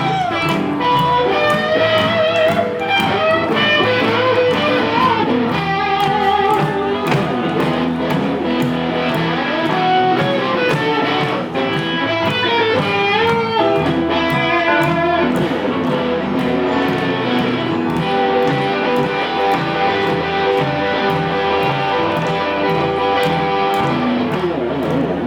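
Live blues band playing an instrumental break, an electric guitar taking the lead with bent notes over a steady beat.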